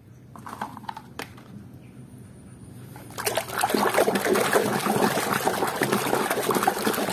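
Hand swishing a muddy plastic toy through a tub of water, sloshing and splashing. A few light clicks come first, and the water sound starts about three seconds in.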